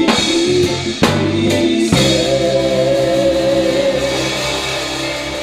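Live worship band playing with singing and drum kit: drum strokes about once a second at first, then a long held final chord from about two seconds in that slowly fades.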